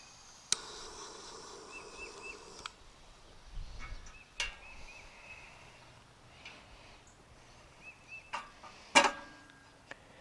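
A handheld torch lighter clicks on and hisses steadily for about two seconds as it lights fire starters under charcoal briquettes. Later come a few sharp metal clanks, the loudest near the end with a short ring, as the steel grill grate is lowered onto the firebox. Faint bird chirps recur in the background.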